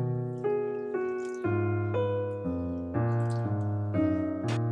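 Background instrumental music: a gentle melody of single notes changing about twice a second.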